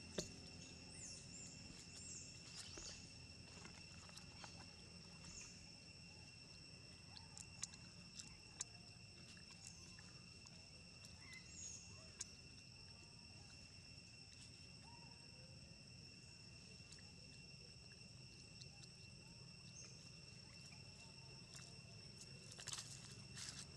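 Faint forest ambience: a steady, high insect drone at two pitches, with a few faint bird chirps and scattered small clicks. Near the end come louder rustles and crackles of dry leaves as a macaque walks over the leaf litter.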